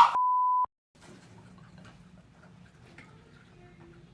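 The tail of a scream cut off by a single censor bleep: a steady high beep lasting about half a second that stops abruptly. Then only faint room noise with a few small ticks.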